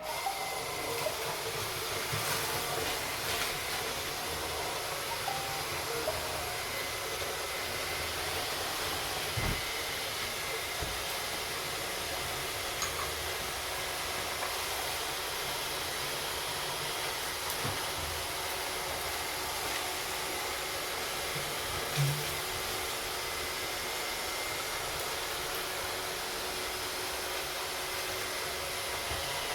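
Three Roomba robot vacuums (a 561, a 620 and an older Roomba Pro) running together. Their vacuum motors and brushes make a steady whirring hiss, broken by a few short knocks, the loudest about two-thirds of the way through.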